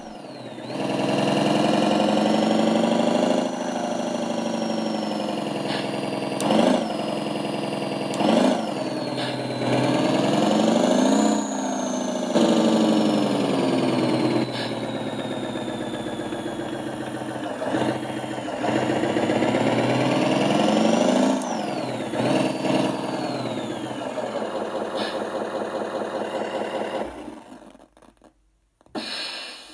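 Simulated engine sound from an ESP32 RC sound and light controller. The engine starts under a second in, idles, and revs up and down several times, with a high whistle rising and falling with the revs. It shuts off a couple of seconds before the end.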